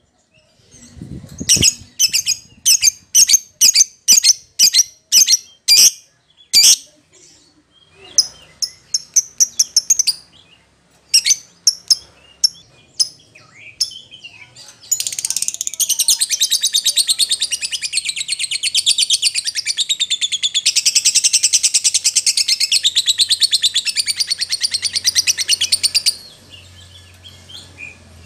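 Agitated fighter lovebird calling: a run of sharp, loud, high chirps about two a second, then softer chirping. About halfway through it breaks into a long unbroken rapid chatter lasting some eleven seconds, then drops back to scattered chirps.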